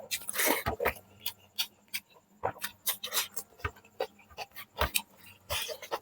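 Close-miked eating sounds of chicken curry and rice: wet chewing and lip smacks, a rapid, irregular run of short clicks with a couple of longer slurping or crunching bursts.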